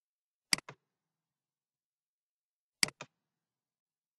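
Computer mouse clicks: two press-and-release double clicks, about two seconds apart, with silence between.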